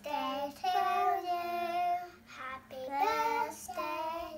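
Young boys singing in high child voices, holding long notes with short breaks between phrases.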